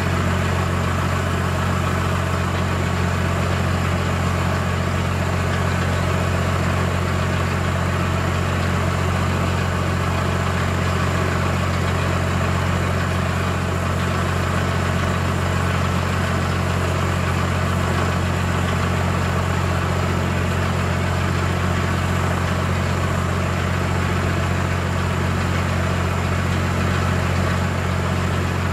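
An engine running steadily at idle, a constant low hum that does not change.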